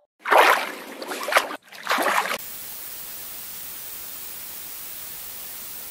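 Sound-effect samples: three short splashy noise bursts in the first couple of seconds, then a steady, even hiss like white noise.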